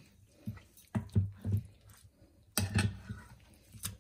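Metal spoon mixing raw chicken pieces with yogurt and spices in a glass bowl: wet squelching broken by several sharp knocks and scrapes of the spoon against the glass.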